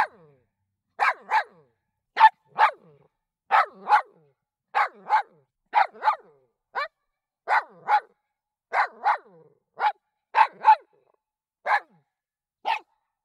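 A recorded dog barking in short barks, mostly in quick pairs, a pair or single bark coming about once a second.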